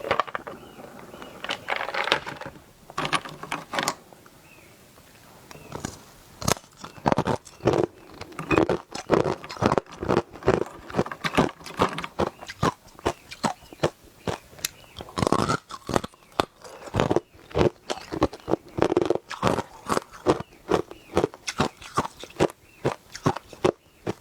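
A person biting and chewing hard ice close to the microphone: repeated sharp crunches, a few at first, then after a short lull a dense run of about two a second.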